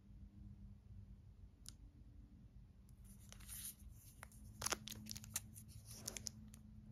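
Faint clicks and short scrapes of a hard plastic graded-card slab handled and turned over in the hands, mostly in the second half, over a low steady hum.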